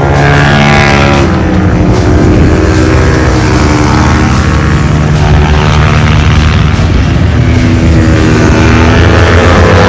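Racing motorcycle engines at high revs as bikes pass on the circuit, the engine note rising and falling as they accelerate, shift and go by.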